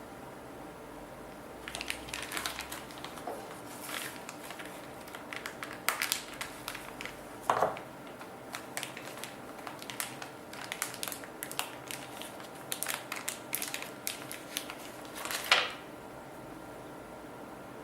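Rustling, crinkling and small clicks of hands working over the fuel lock-off valve's small parts and wrapping, in irregular bursts for about fourteen seconds, with a couple of louder rubs.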